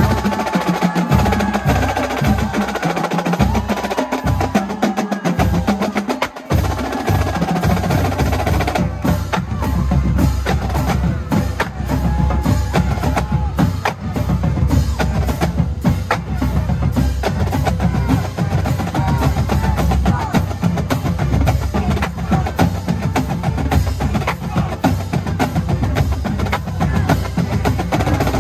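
Marching band drumline of Yamaha snare drums and bass drums playing a loud, fast cadence at close range, with stick clicks and rolls. The bass beat is broken up for the first several seconds, then fills in to a steady, dense pounding about eight seconds in.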